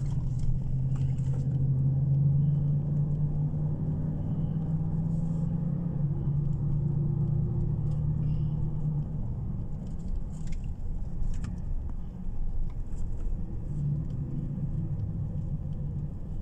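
Car driving, heard from inside the cabin: a steady low engine and road rumble, with the engine note easing a little about nine seconds in.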